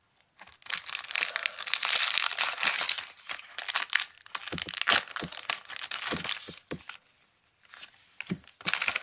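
Foil wrapper of a Pokémon trading-card booster pack being torn open and crinkled by hand: several seconds of dense crackling, then a pause and a short crinkle near the end.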